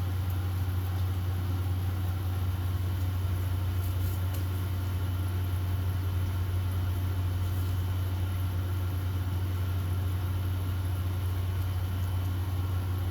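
Handheld hair dryer running steadily: a constant low motor hum under an even rush of air, with no change in speed.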